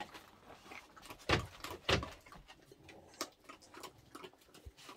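Several dogs eating from bowls on a laminate floor: scattered small clicks and crunches, with two louder knocks about a second and a half in.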